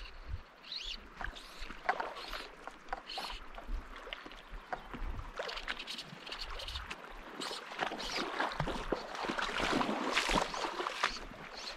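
Water of a shallow rocky creek running and splashing close by, growing louder in the second half, with wind rumbling on the microphone.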